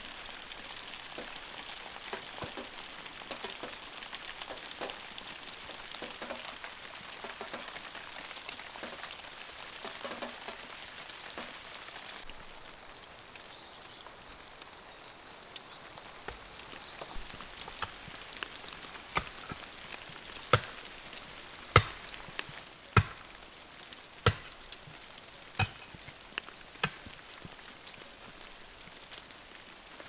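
Steady rain falling, an even hiss that eases about twelve seconds in. In the second half a regular series of sharp strikes, about one every second and a bit and growing louder: a pick digging into stony soil.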